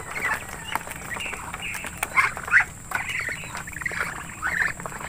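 Muscovy ducks and their ducklings feeding together from a metal tray: many short, high calls scattered throughout, mixed with quick sharp taps as bills peck against the tray.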